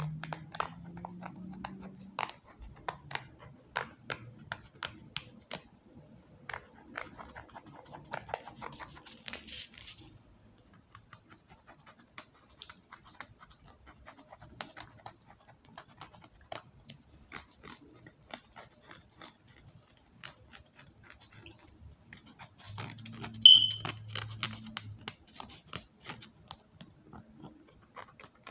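ASMR tapping: fingers and nails tapping and scratching on assorted objects in quick, irregular taps, with a stretch of scratching about a third of the way in. About three-quarters of the way through comes a short, high-pitched sound, the loudest moment.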